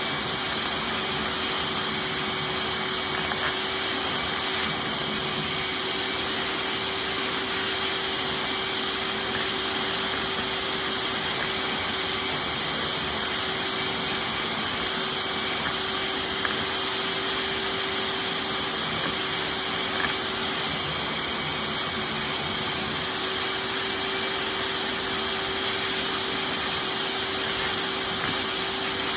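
Hoover wet/dry shop vac running steadily on dry pickup, with a constant hum and a high whine, its hose drawing dust out of a vacuum cleaner's pre-motor filter. A couple of faint ticks near the middle.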